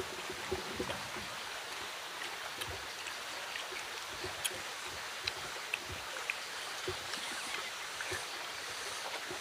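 Steady outdoor background hiss, with faint scattered clicks and rustles of hands picking through a banana-leaf wrap of cooked fish.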